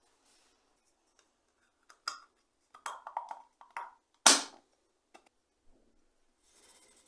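Clinks and clicks of a bicycle headlamp lens being pressed into its headlamp shell, ending in one sharp snap with a brief ring as it seats, about four seconds in. A few light clicks follow.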